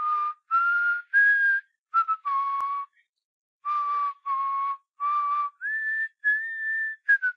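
A person whistling a tune through the lips: a string of clear held notes with short breaks between them and a longer pause about halfway, the last notes pitched higher and held longer.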